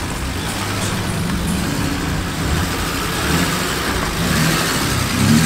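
Car engine running at low revs, a steady low rumble that grows a little louder near the end.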